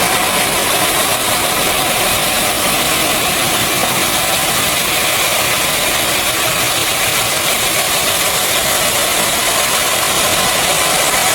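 Loud, steady machinery noise: a constant hiss with a faint steady hum and no change or sudden hits throughout.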